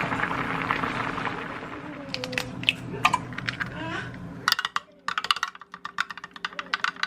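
A steady hiss with a low hum cuts off about four and a half seconds in. Around it runs a quick, irregular series of light, sharp clicks and clinks of small hard objects, densest after the hiss stops.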